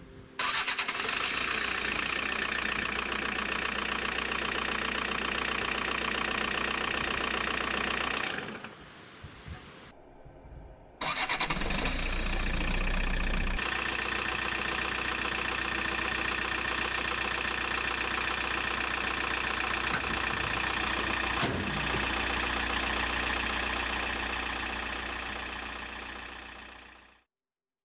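Toyota 2.0-litre D-4D diesel engine, turned over by a newly fitted 2.2 kW starter motor, starting promptly and idling steadily. It stops after about eight seconds, starts again about three seconds later with a heavier low rumble for a couple of seconds, then settles back to a steady idle.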